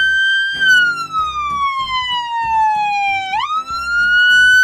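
Police car siren wailing: one long tone that holds high, slides slowly down for about three seconds, then sweeps quickly back up about three seconds in and holds high again.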